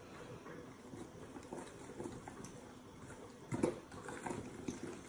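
Thin kefir batter being stirred by hand with a metal utensil in a glass bowl: soft wet stirring with light clicks against the glass, and one louder knock about three and a half seconds in.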